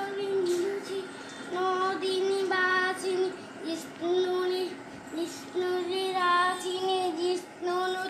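A child singing a simple, repetitive tune, holding nearly the same high note in short phrases with brief breaks between them.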